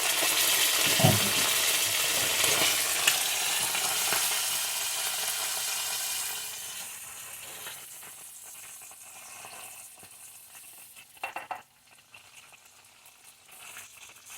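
Eggs and tortilla strips sizzling in hot oil in a frying pan, loud at first, then dying away about six or seven seconds in. A couple of light knocks near the end.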